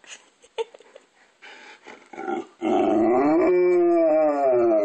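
Golden retriever howling: a few short grunting sounds build into one long howl about halfway in, which slowly sinks in pitch.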